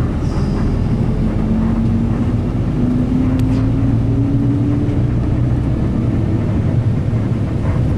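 Road vehicle running on the move, a steady low engine and road rumble. The engine note rises slowly as the vehicle gathers speed.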